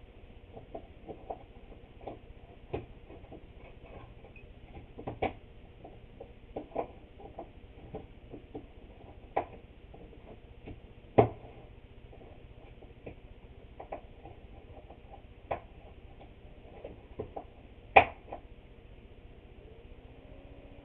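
Scattered light clicks and taps of small hard objects being handled, at irregular intervals, with two louder, sharper knocks, one near the middle and one about three-quarters through.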